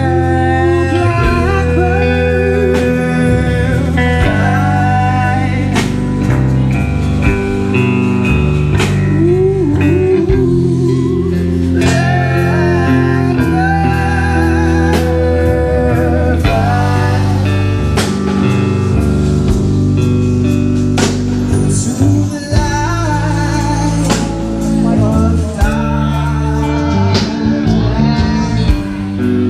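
Live blues band playing loud, with electric bass guitar and drums under a wavering lead voice singing.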